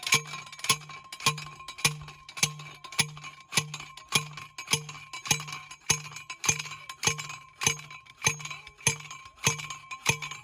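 Background music with a steady beat: a sharp percussive click on each beat, about five beats every three seconds, each with a low bass note.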